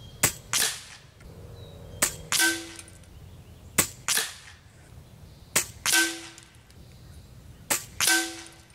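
Five shots from an Air Venturi Avenger .22 PCP air rifle, fired about two seconds apart. Each sharp crack is followed about a third of a second later by a second, longer crack of the pellet striking the target downrange.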